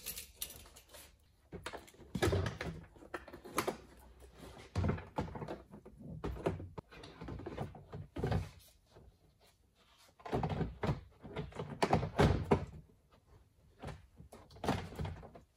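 Irregular thunks and knocks of a Peugeot 407's front door trim panel being handled and pressed onto the door, in clusters with short pauses between, loudest about two thirds of the way through.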